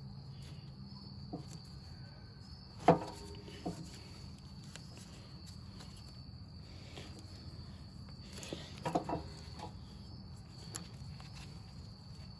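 Steady chirping of crickets with a low hum underneath, broken by a few sharp clinks of metal parts and tools being handled: a loud ringing one about three seconds in, a lighter one just after, and a quick cluster near the nine-second mark.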